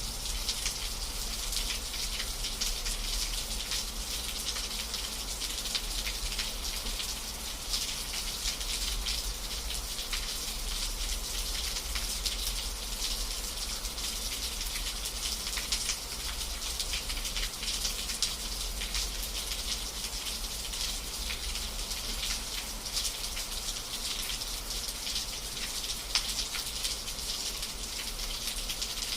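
Steady rain falling, with many small drop ticks over an even hiss and a constant low rumble underneath.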